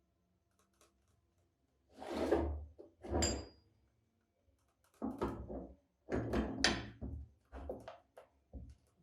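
A series of short scraping clunks from heavy metal parts being handled and set down, one giving a brief metallic ring about three seconds in.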